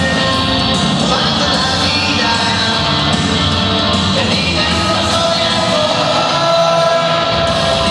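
Loud dance music with singing, played over a party DJ sound system, steady and unbroken.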